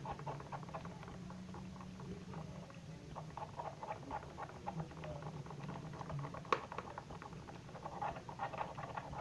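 Glue-and-body-wash slime base being stirred to work in the colouring: a run of quick, sticky wet clicks, with one sharper tap about six and a half seconds in, over a steady low hum.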